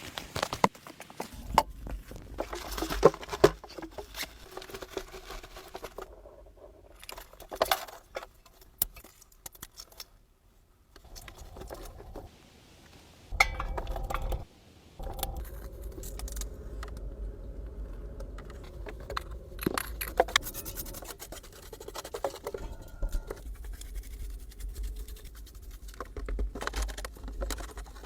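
Irregular scraping, tapping and clinking of objects being handled, with a low rumble under much of it.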